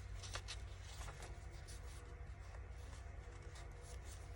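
Faint rustling of paper as handmade journal pages are handled and turned, over a low steady hum.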